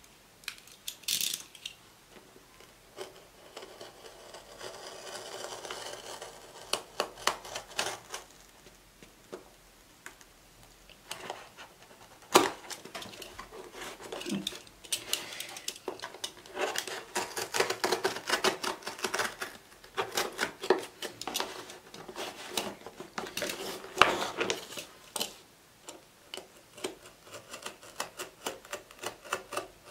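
Snap-off utility knife cutting through the packing tape and cardboard of a shipping box: irregular scratching and scraping with handling noise of the box, broken by a few sharp knocks, the loudest about 12 seconds in and about 24 seconds in.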